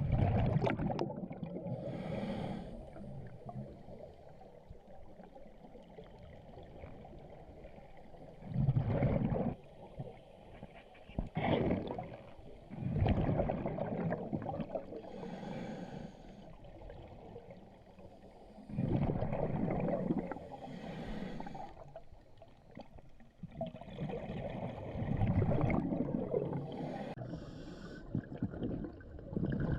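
A snorkeller breathing heavily through a snorkel, a loud breath every few seconds, with water gurgling and sloshing around it.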